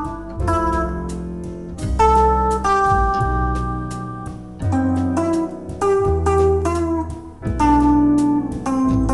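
Bossa nova instrumental music at a relaxed tempo of about 85 beats a minute: plucked chords over a walking bass line.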